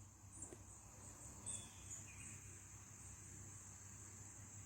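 Faint, steady high-pitched insect drone, with a few faint bird chirps about one and a half and two seconds in.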